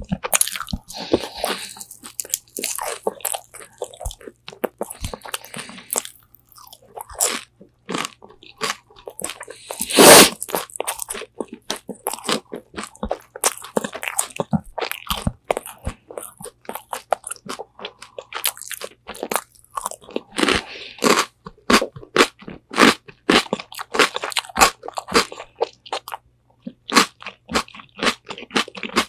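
Close-miked biting and chewing of crispy Korean spicy fried chicken wings: many sharp crunches of the battered skin, with the loudest bite about ten seconds in.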